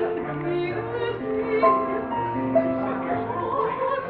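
Music: a melody moving in long, steady held notes.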